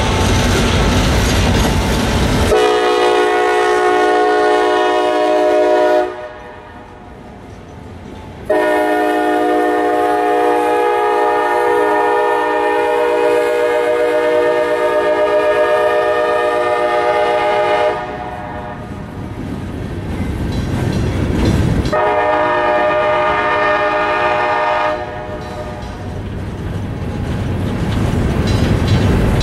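Freight locomotive horn sounding three chord blasts: one of a few seconds, then a long one of nearly ten seconds, then another short one, from a CSX GP38-2 and slug set. Under the horn, the locomotives and scrap gondolas rumble and clatter along the rails.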